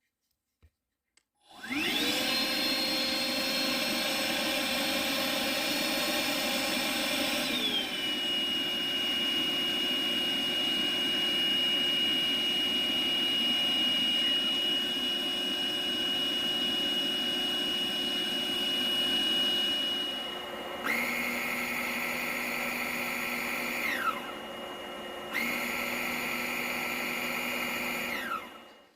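Ryobi ONE+ 18V cordless stick vacuum's motor switching on and running with a steady high whine. About eight seconds in, its pitch slides down and settles lower. Over the last eight seconds it shifts pitch twice, each time sliding down, then shuts off near the end.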